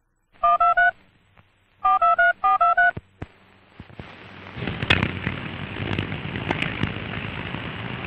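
Nine short touch-tone (DTMF) beeps, each two tones sounded together, like telephone keypad dialing: three in quick succession, then six more after a pause. Then the hiss and crackle of an old optical film soundtrack fades in.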